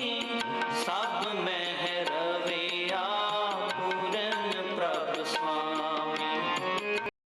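Background music with a melody over steady percussion, cutting off suddenly just before the end.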